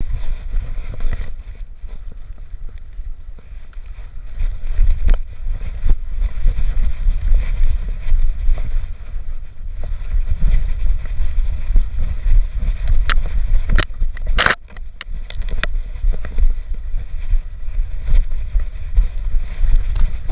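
Wind buffeting and low rumble on a GoPro strapped to a dog's chest harness as the dog moves over rough ground. A few sharp clicks or scrapes come about two-thirds of the way through.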